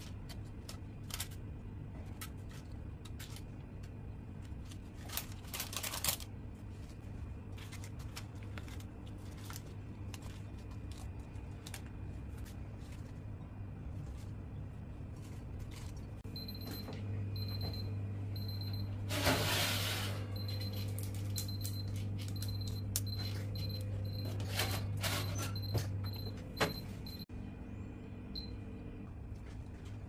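Light clicks and taps of glass and plastic food containers and fruit being handled, with a rustle about two-thirds of the way in. Under it runs a steady low electrical hum that grows louder past the middle and drops back near the end, with faint high beeps repeating over the second half.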